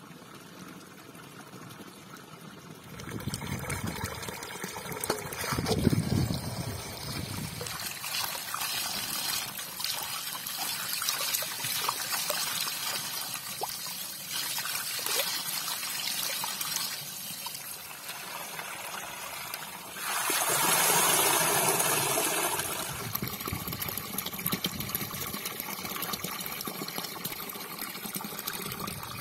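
Spring water running from a pipe and splashing, with vegetables being washed by hand in a metal basin in the flowing water. There are louder bouts of splashing about a sixth of the way in and again about two-thirds through.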